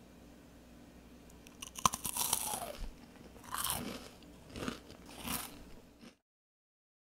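A crisp toasted white-bread rusk cube bitten with a sharp crack about two seconds in, then chewed in three more loud crunches. The sound cuts off abruptly near the end.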